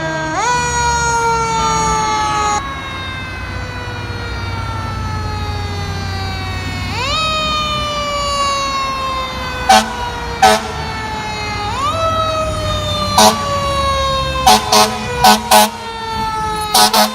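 Fire truck siren whose pitch jumps up quickly and then slowly falls, three times, over a low truck engine rumble. Short, very loud air-horn blasts come in about ten seconds in and cluster in a string of quick bursts near the end.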